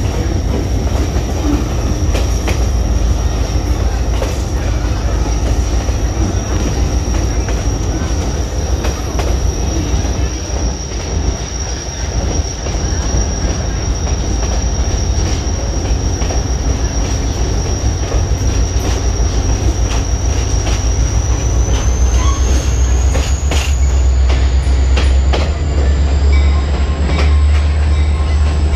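Heard from inside a vintage railroad passenger coach rolling along the track: a steady heavy rumble of wheels on rail with scattered clicks, and a thin high wheel squeal that rises in pitch about two-thirds of the way through.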